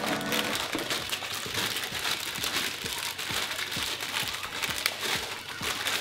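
Crinkling and rustling of a motherboard's plastic anti-static bag and its cardboard box as they are handled, a dense run of small crackles that goes on without a break.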